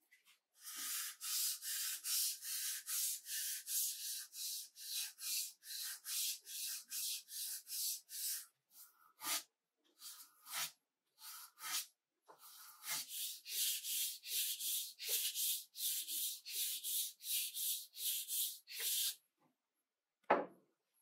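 Sandpaper on a block being rubbed back and forth along a bloodwood-and-ebony wooden knife handle: hand-sanding with quick, even strokes about three a second, pausing for a few seconds in the middle. A single knock near the end.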